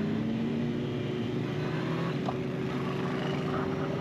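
Motorcycle engine running at a steady, even speed while being ridden, with road and wind noise.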